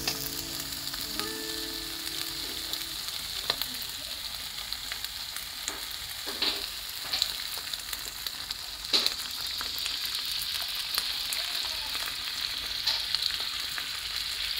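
Fish frying in hot oil in a cast-iron skillet: a steady sizzle with scattered sharp pops and crackles.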